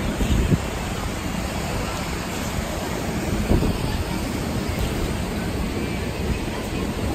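Steady rush of river water pouring over a low concrete weir, with wind gusting on the microphone a couple of times.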